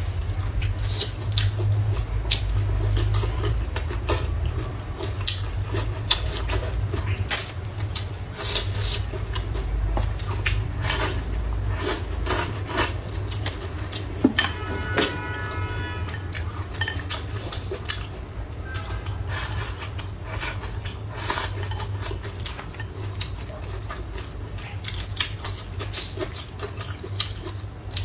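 Eating sounds: chopsticks and spoon clicking and clinking against bowls many times at an uneven pace, over a steady low rumble. There is a short pitched sound about halfway through.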